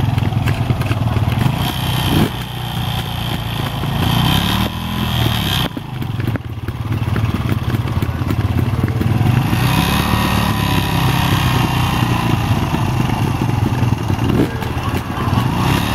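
Trail bike's single-cylinder engine running at low revs close by, the revs rising and falling with the throttle; the engine note dips briefly about six seconds in.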